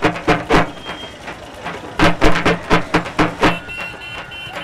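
Rhythmic percussion music: phrases of quick, evenly spaced drum strokes, about three to four a second, with pauses between them. In the pauses there is street and traffic noise, with a thin steady beep near the end.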